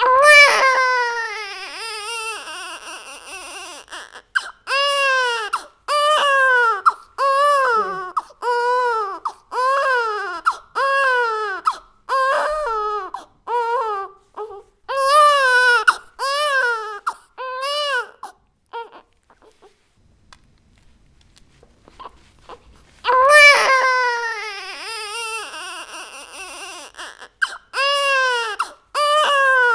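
Baby crying hard. A long loud wail opens, then comes a run of short cries, each rising and falling in pitch, about one a second. After a pause of a few seconds, another long wail starts and more cries follow.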